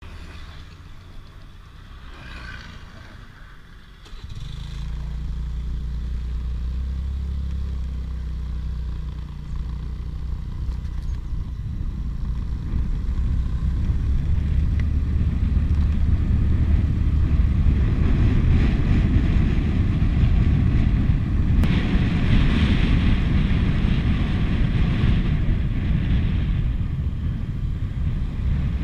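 Small motor scooter being ridden, heard from a handlebar-mounted action camera: a steady low engine-and-wind rumble that jumps louder about four seconds in and keeps growing louder for several seconds after.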